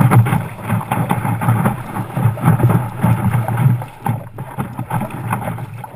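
Water rushing and splashing along the nose of a stand-up paddleboard as it rides a wave, heard close up from a camera mounted on the board, with some wind on the microphone. It eases off a little near the end.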